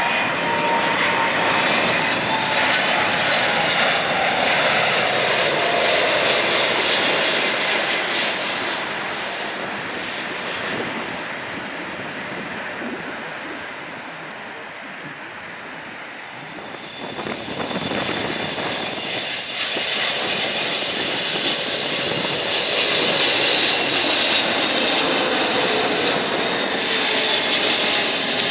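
Jet engines of a four-engined Boeing 747 freighter on final approach, passing close by, with a whine that falls in pitch over the first few seconds as it goes past. The engine noise eases off midway and swells again in the second half.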